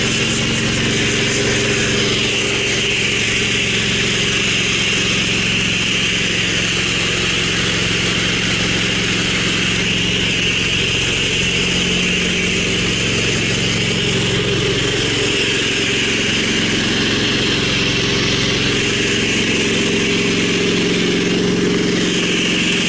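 Gas-engine pressure washer running steadily, with the hiss of its wand spraying soapy water onto concrete through a downstream injector.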